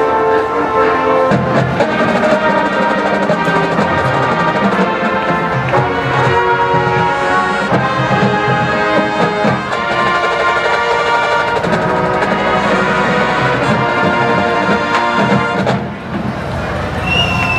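Drum and bugle corps brass playing sustained chords over drums, with a short break near the end.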